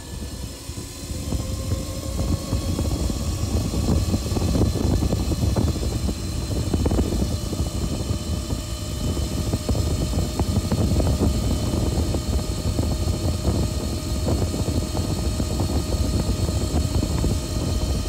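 Heavy wind buffeting on the microphone, a steady low rumble full of gusts, with a faint thin whine underneath that rises slowly in pitch.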